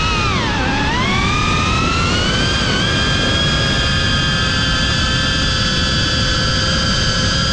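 Whine of a GEPRC Cinelog35 FPV drone's brushless motors and propellers, picked up onboard. The pitch dips sharply about half a second in, climbs back over the next couple of seconds, then holds steady.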